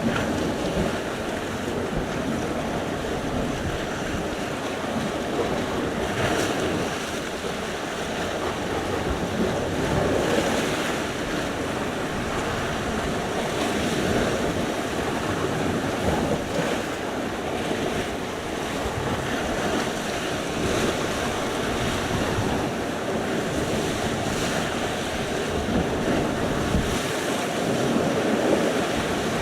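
Sea surf: waves breaking and washing on the shore in a steady rush, swelling slightly every few seconds.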